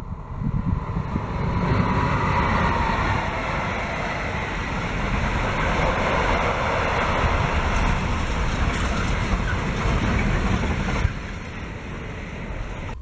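Freight train passing at close range: a diesel locomotive goes by, then a long string of container flat wagons rolling past with steady wheel rumble. The rumble drops away suddenly about eleven seconds in as the last wagon clears.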